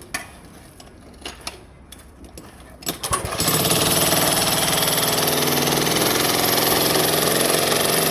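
A few scattered knocks, then about three seconds in a jackhammer starts up and hammers continuously, breaking out concrete.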